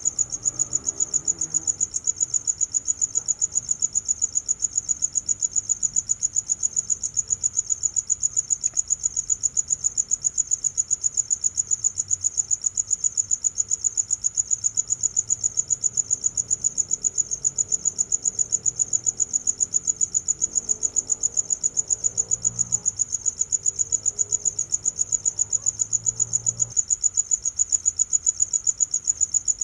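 A cricket chirping: one steady high-pitched chirp repeated in a fast, even rhythm without a break.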